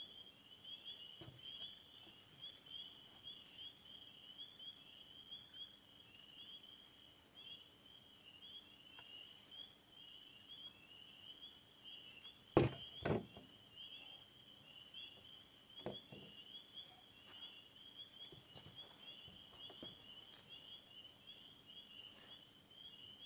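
Faint, steady high chirring of night insects, going on without a break. About halfway through come two sharp knocks close together, with a few fainter clicks later.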